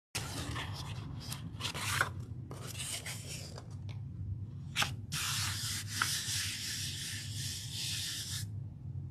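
Hand rubbing over paper: short scuffing strokes for the first few seconds, then one steady rub of about three seconds that stops abruptly near the end.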